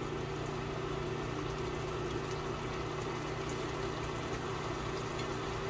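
A steady low machine hum made of several held tones over a faint even hiss, unchanging throughout.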